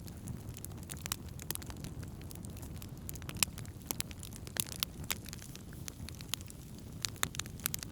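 Wood campfire burning: a steady low rumble of the flames with frequent irregular crackles and several sharper pops.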